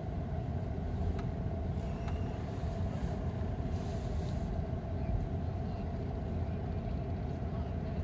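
Vehicle engine and road rumble heard from inside the cabin: a steady low rumble with a constant hum above it.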